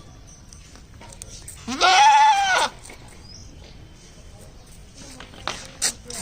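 A goat bleating once, a loud call of about a second, nearly two seconds in, rising and then falling in pitch; a second bleat begins right at the end.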